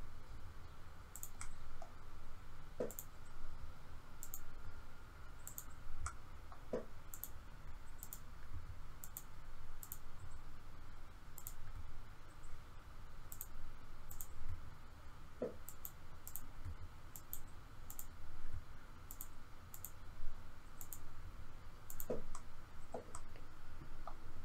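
Computer mouse and keyboard clicks while editing in 3D software: short, sharp clicks at an irregular pace of about one or two a second, over a low steady hum.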